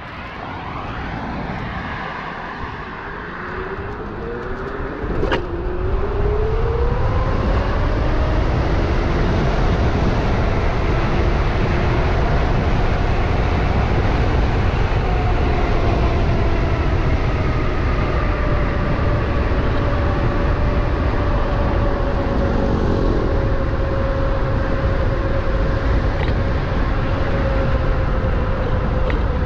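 Electric bike's QS 273 hub motor whining as the bike rides off. The whine rises in pitch over the first several seconds as it speeds up, then holds a steady tone at cruising speed, over a heavy rumble of wind on the microphone. There is a sharp click about five seconds in.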